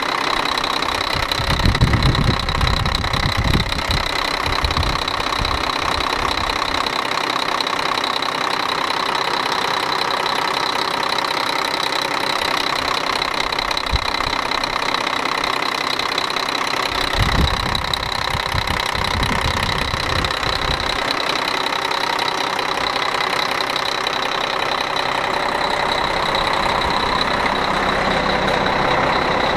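Volvo D12 inline-six turbo diesel in a 2000 semi truck idling steadily while it warms up after a cold start. Two short low rumbles stand out, one early and one past the middle.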